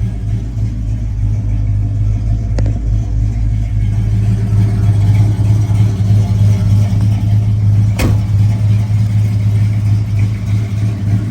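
A 383 Magnum V8 idling steadily through dual exhaust with an even low rumble. Two short sharp clicks cut in, one near the start and one about eight seconds in.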